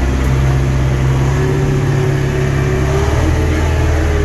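David Brown 1490 tractor's four-cylinder diesel engine running as the tractor drives along, heard from inside the cab, with a whine that rises a little and eases back with engine speed.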